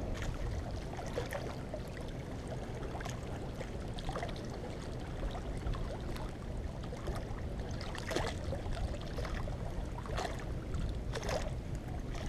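Small waves lapping and trickling among rocks at the water's edge, with a steady low wind rumble on the microphone and a few short splashes or knocks near the end.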